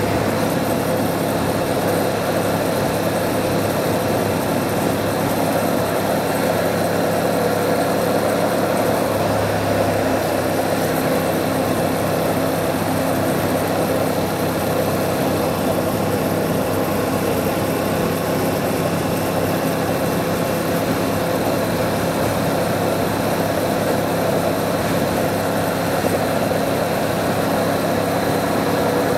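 Yamaha MT-07's parallel-twin engine running at a steady cruise, its pitch hardly changing, over a constant rush of road and wind noise.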